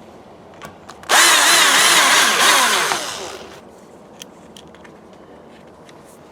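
A power drill runs for about two seconds, its motor pitch wavering under load, then winds down. A few light clicks before and after.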